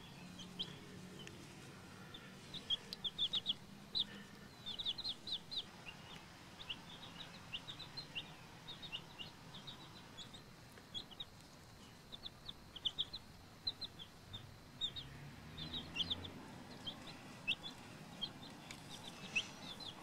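Two-week-old chicks peeping: short, high cheeps, singly and in quick runs of several, on and off throughout.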